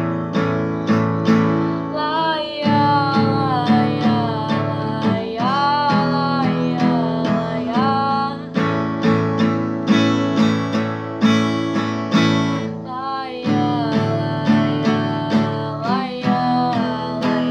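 A young woman singing to her own strummed acoustic guitar. The guitar keeps a steady strum throughout, and the voice comes in with a long phrase about two seconds in, drops out for a few seconds in the middle, and returns with another phrase near the end.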